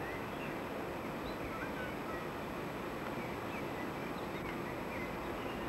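Steady rumble of a diesel locomotive drawing tank wagons, with small birds chirping in many short high calls throughout.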